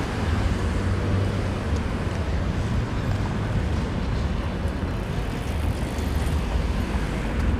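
Steady traffic noise of a busy city street: a low rumble of passing vehicles.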